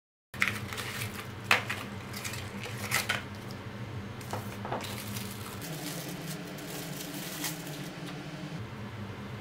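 Unboxing handling noises: a scatter of light clicks and taps from a plastic watch case, card and packaging being picked up and handled, mostly in the first five seconds, over a steady low hum.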